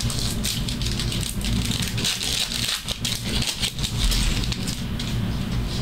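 Trading-card packs of 2024 Topps Cosmic Chrome being ripped open and handled: a busy, irregular crinkling and rustling of wrappers and cards.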